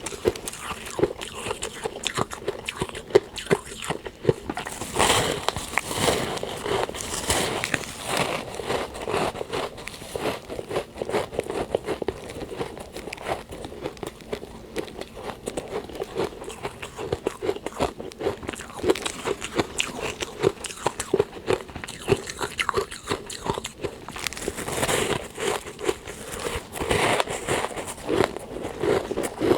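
Close-up biting and chewing of powdery freezer frost, a dense run of soft crunches and crackles with louder bites every so often.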